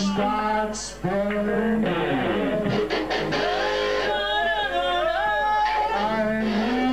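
Rock band playing live, electric guitar to the fore with a voice singing, on an old camcorder recording; the music drops back briefly about a second in and then picks up again.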